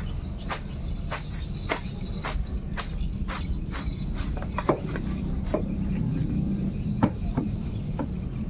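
A series of sharp taps or knocks, about two a second at first, then fewer and uneven after the middle, over a steady low rumble.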